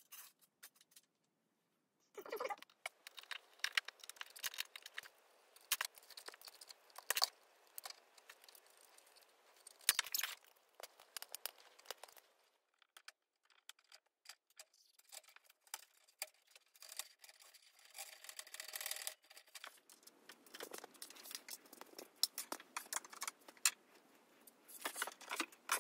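Light clicks, taps and rattles of small antenna parts being handled and fitted together as the antenna's matching section is reassembled after a capacitor repair. The sounds come in irregular bursts with short pauses.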